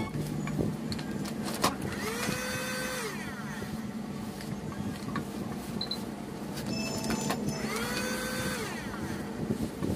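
Electric heat gun running with a steady motor-and-fan hum. Two short whines rise, hold for about a second and fall away, one about two seconds in and one near eight seconds.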